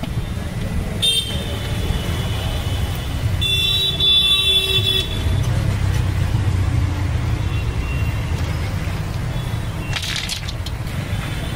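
Steady rumble of street traffic with vehicle horns honking: a short toot about a second in and a longer one from about three and a half to five seconds in.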